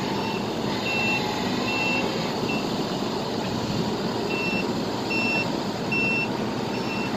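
Skid-steer loader's backup alarm sounding a short high beep a little more than once a second, pausing briefly about halfway through, over a steady rumble of engine and road noise.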